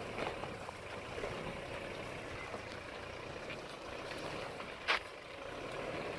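Toyota Hilux pickup driving slowly out of a rut over a rocky dirt track, its engine running steadily under light load, with one sharp knock about five seconds in.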